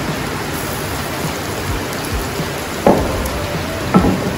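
Food sizzling steadily in oil in a pan on a gas stove, with two short knocks about three and four seconds in.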